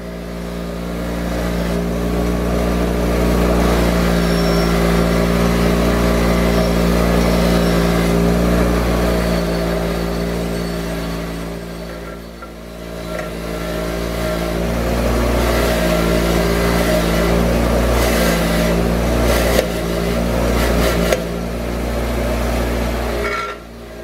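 Bench grinder motor running with a steady hum while steel arbor press parts are held against its wire wheel to clean them, giving a rasping hiss. The sound eases off briefly about halfway through and has a few sharp ticks later on.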